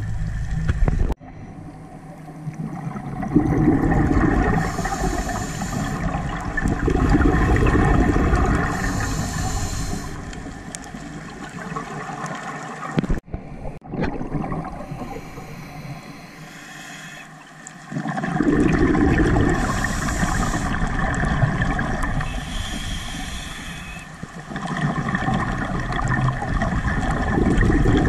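Scuba diver's regulator breathing, recorded underwater: long spells of rumbling, gurgling exhaust bubbles alternate with short hissing inhalations, repeating over several breaths.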